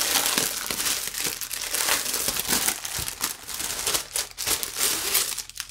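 Clear plastic packaging crinkling and rustling as hands unwrap a cross stitch kit and slide it out of its plastic sleeve. The crackling is busy and irregular, then dies away near the end.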